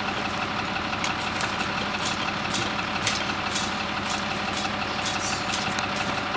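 M35A3 deuce-and-a-half truck's diesel engine running steadily, with a string of short sharp rattles and clicks over it.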